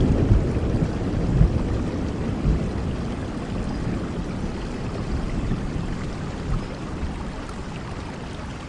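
Steady rain falling, with a low rumble of thunder dying away over the first couple of seconds.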